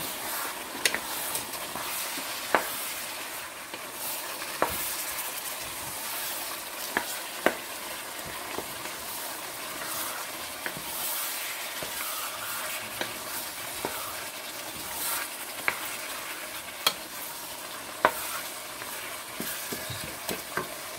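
Chopped cabbage and tomatoes sizzling in oil in a hot pot while a wooden spoon stirs them, knocking sharply against the pot now and then.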